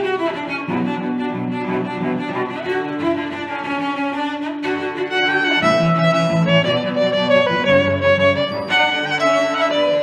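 Background music led by bowed strings, a melody held over lower sustained notes.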